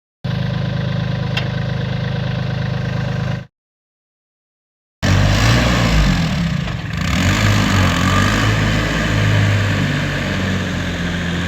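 Indo Farm 1026e tractor's diesel engine idling steadily, cut off abruptly. After a second and a half of silence it runs again with its pitch rising and falling as it is revved.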